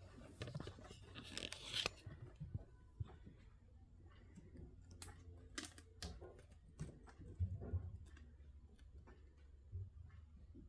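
Faint rustling of a rolled diamond painting canvas and its clear plastic cover being handled: a brief crinkle about two seconds in, then scattered light clicks and crackles.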